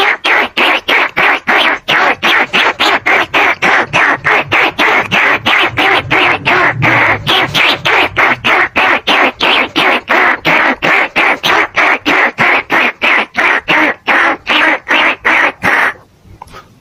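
Recorded rat calls played as a lure for bandicoot and rice-field rats: a loud, rapid run of squeaking chatter pulsing about four times a second, with a brief break near the end.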